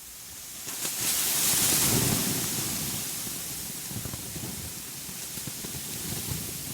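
Steady rushing ambient noise, rain-like hiss over a low rumble. It swells to its loudest about one to two seconds in, then settles.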